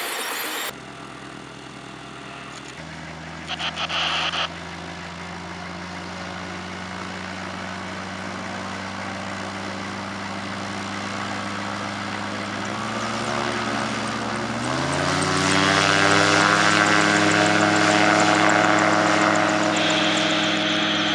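Gyroplane's engine and pusher propeller running steadily, with a brief louder burst about four seconds in. About fifteen seconds in the engine rises in pitch to full power for the takeoff run and holds there as the aircraft lifts off. Before that, for under a second, there is road noise from a moving car.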